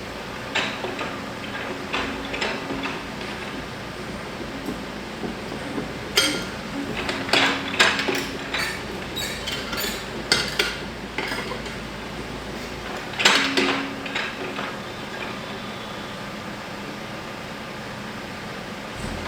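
Irregular metallic clanks and knocks in scattered clusters, over a steady low hum.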